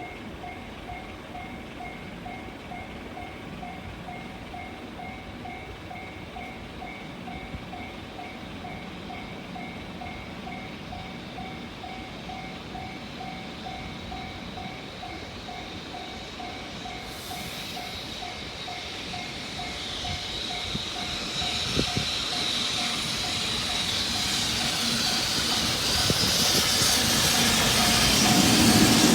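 Japanese level-crossing warning bell ringing in a rapid, evenly repeating ding-ding. Over the last ten seconds an approaching freight train, an EF65 electric locomotive hauling tank cars, rises steadily louder beneath it.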